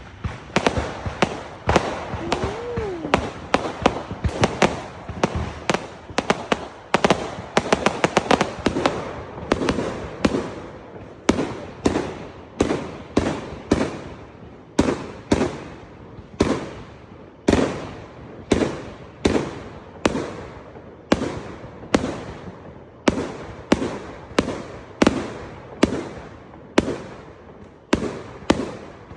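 Fireworks going off. For about the first ten seconds the bangs and crackles overlap densely, then they settle into a steady run of single bangs, a little more than one a second, each dying away briefly.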